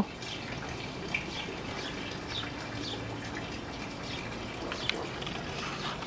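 Steady background noise with a few faint, short, high chirps scattered through it.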